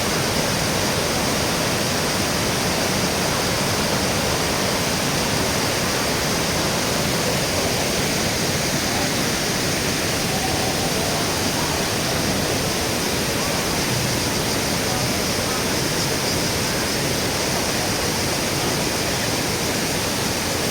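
Kravica waterfalls on the Trebižat River: a steady, even rush of falling water.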